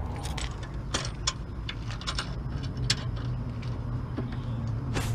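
Scattered light metallic clicks and taps of the tow-hook bolts, washers and hook being handled and fitted against the bumper mount, with a sharper click near the end, over a steady low hum.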